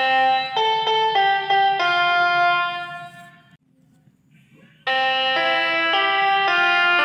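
Telolet bus air horn playing a tune in quick reedy notes; a longer note fades out near the middle, and after about a second's pause the quick notes start again.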